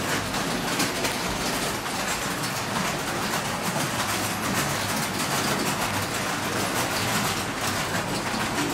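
Model trains running on a layout's track, a steady rolling rattle with faint clicks of wheels over rail joints.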